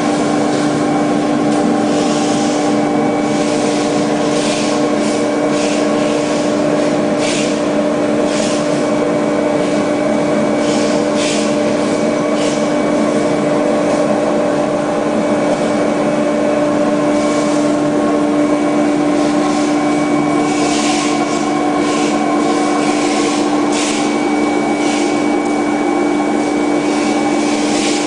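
CNC contour foam-cutting machine with a wire blade running: a steady, loud motor hum with a strong low tone, broken by short hissing bursts every second or two.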